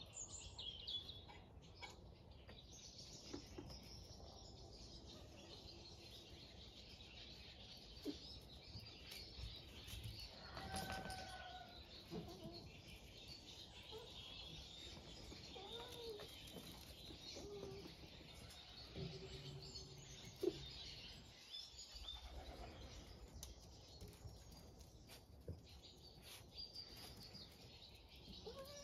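Faint outdoor birdsong: small birds chirping throughout, with a few short, lower calls mixed in.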